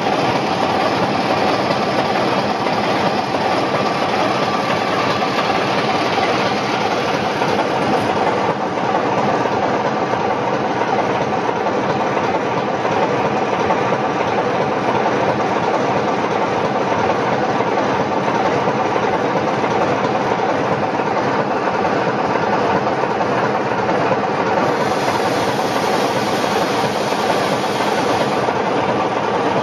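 Class 24 diesel-electric locomotive's six-cylinder Sulzer engine idling steadily, heard close up alongside the engine-room louvres while the locomotive stands waiting for the points.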